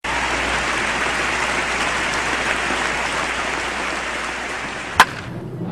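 Steady applause from a large crowd, broken off by a sharp click about five seconds in, after which the clapping drops away.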